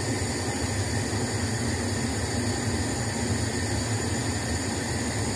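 Pot of tea on a gas hob coming to the boil: a steady rumbling hiss of the burner flame and the heating liquid.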